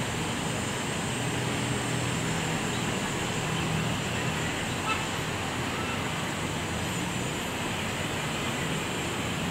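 Steady outdoor city ambience of distant road traffic, with a low engine hum that swells and fades.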